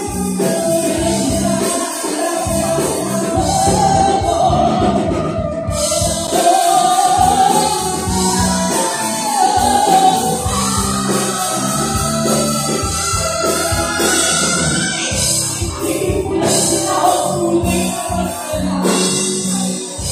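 Live band playing: a woman sings long held, gliding notes into a microphone over electric guitar and a drum kit keeping a steady beat.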